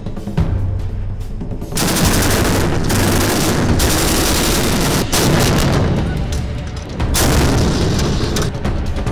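Rapid gunfire and booms from a live-fire exercise, in four long loud stretches starting about two seconds in, over background music with a low drum beat.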